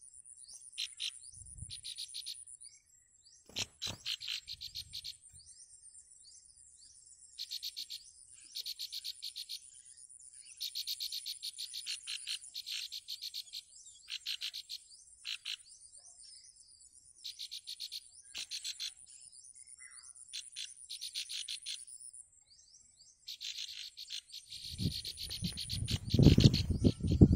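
Nestling songbirds begging with repeated buzzy, rasping calls, each about a second long, over a steady high-pitched insect buzz. Near the end a loud low buffeting noise comes in.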